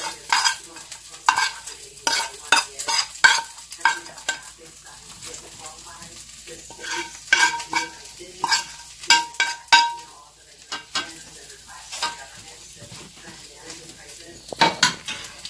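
A spoon scraping and clinking against a clay bowl in irregular strokes, some clinks ringing briefly, as fried mushrooms and nuts are spooned out of it.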